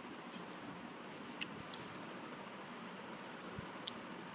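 A few faint, sharp clicks and taps, scattered and irregular, over a steady low hiss of room noise.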